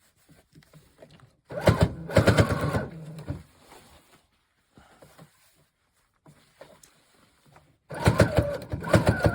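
Brother FS100WT sewing machine running in two short bursts of about two seconds each, with rapid mechanical ticking over a low motor hum; the second burst starts near the end.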